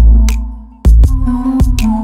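Electronic background music with deep bass hits that fade away, sharp percussive strikes and a repeating melody.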